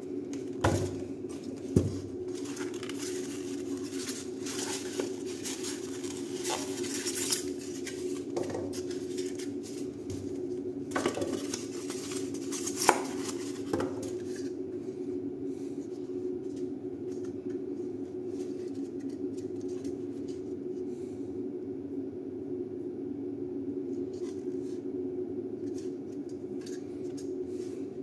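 Unboxing a Grundfos Alpha2 circulator pump by hand: cardboard and the foam insulating shell rustling and scraping, with sharp clicks and knocks as the plastic-and-metal pump is handled, busiest in the first half and quieter after about halfway. A steady low hum runs underneath.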